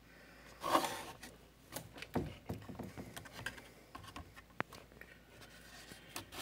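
Light handling noises: a rustling scrape a little under a second in, then scattered soft taps and scrapes, with one sharp click about four and a half seconds in.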